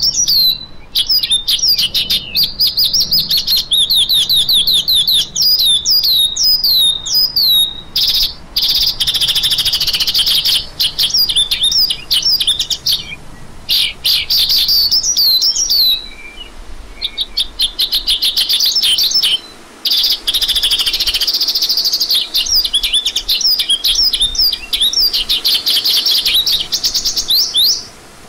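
A lark, the branjangan or Horsfield's bush lark, singing a fast, continuous stream of high chirps and quick up-and-down sweeping notes, broken by a few brief pauses.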